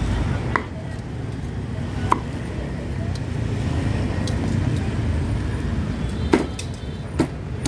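Steady low rumble of road traffic, with a few sharp clicks or knocks, the loudest about six seconds in.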